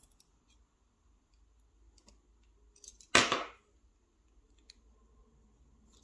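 Small metallic clicks of tweezers handling tiny lock pins and springs while a lock is being disassembled, with one much louder, sharp clack a little over three seconds in.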